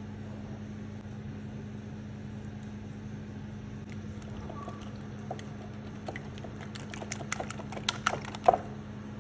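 Wire whisk beating eggs and milk in a glass bowl, its tines clicking against the glass. The clicks start sparse about halfway through, then come faster and louder near the end, over a steady low hum.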